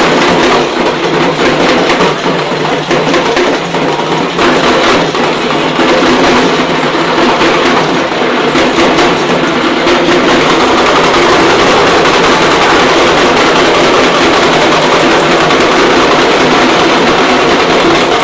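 Ensemble of parai frame drums beaten rapidly with sticks in a loud, dense, continuous rhythm.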